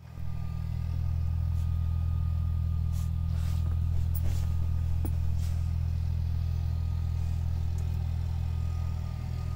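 A steady low hum, with a few faint taps around the middle.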